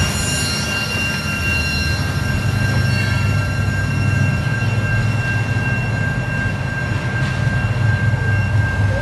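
CSX freight train rumbling steadily as it moves off down the line, its last car just gone by, with a thin, steady high-pitched wheel squeal over the rumble.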